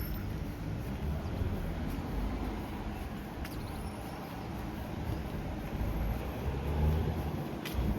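Strong wind buffeting the microphone, a low, gusty rumble that swells and eases, with two faint clicks, one a few seconds in and one near the end.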